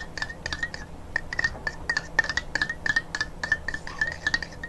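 A utensil stirring slime mix of white glue and liquid soap in a container, clinking against its sides in quick, even strokes, about four a second, each with a short ring.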